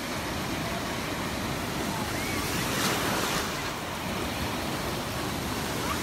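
Ocean surf breaking and washing through shallow water, a steady rushing with a louder surge of foaming water about three seconds in.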